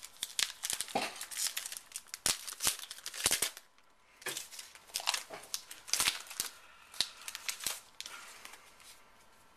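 A foil trading-card pack being torn open and its wrapper crinkled in the hands: a run of crackling rustles that quietens near the end.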